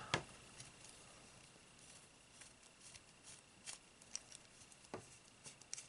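Faint, scattered small clicks and ticks from handling a screwdriver and small metal scope parts, a dozen or so spread unevenly over a few seconds.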